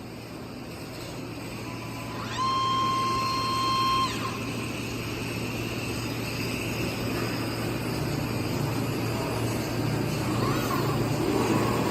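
5-axis CNC machine running with a steady hum and hiss that slowly grows louder. About two and a half seconds in, a high steady whine sounds for under two seconds and then stops.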